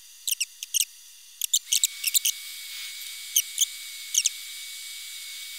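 Small push buttons on an STC-1000 temperature controller clicking, pressed again and again, mostly in quick pairs, as the temperature setpoint is stepped through. A faint steady high tone comes in a little under two seconds in.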